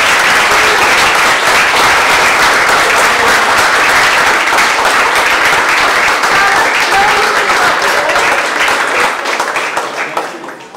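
A roomful of people applauding: dense, rapid hand clapping with a few excited voices mixed in, fading away near the end.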